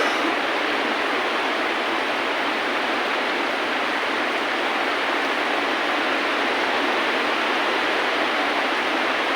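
Steady rain sound: an even, dense hiss with no single drops standing out and no music over it. A brief tick comes at the very start.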